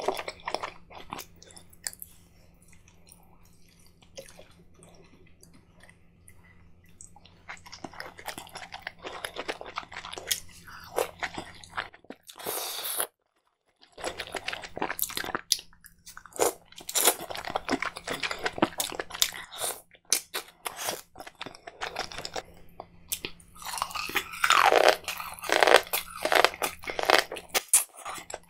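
Close-miked eating: a person biting and chewing king crab meat and corn on the cob dripping with creamy Alfredo sauce, with crunching and quick mouth clicks. The sound is sparse in the first few seconds, drops out for about a second near the middle, then turns dense.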